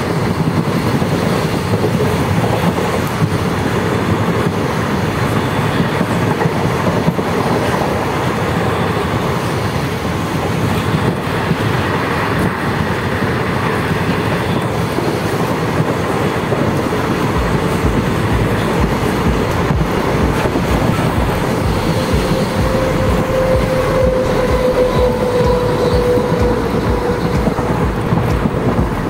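Rumble and clatter of wheels on rails from a passenger train running at speed, heard through an open coach window, with a freight train running on the next track. A steady whine comes in for a few seconds near the end.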